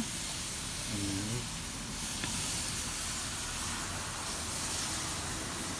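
Beef kabobs sizzling on a very hot gas grill as they are glazed: a steady hiss.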